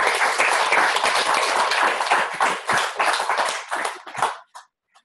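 Audience applauding, a dense run of hand claps that thins to a few last claps and stops about four seconds in.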